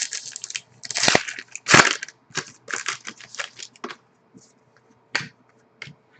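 Trading cards and their plastic packaging being handled: irregular crinkling and rustling, with two louder crunches about a second and nearly two seconds in, dying down to a couple of light clicks near the end.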